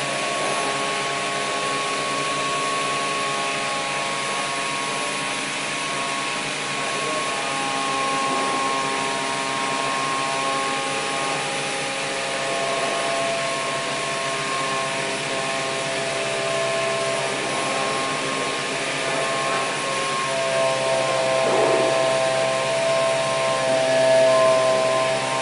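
CNC machine running: a steady mechanical whir with several whining tones over it, which shift a little in pitch. Near the end one whining tone grows louder.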